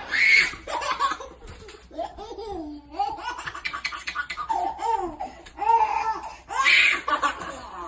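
A young child laughing in repeated high-pitched bursts, with louder outbursts just after the start and near the end.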